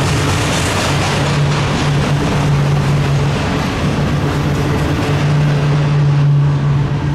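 Double-stack container train passing close by: the steady rolling rumble of its wells cars' wheels on the rails, with a low hum that fades in and out.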